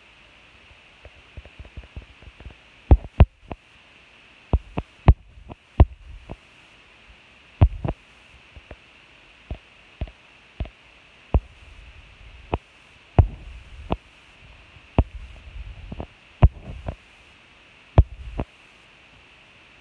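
Irregular sharp knocks and clicks, about one or two a second and some in quick pairs, over a steady high hiss.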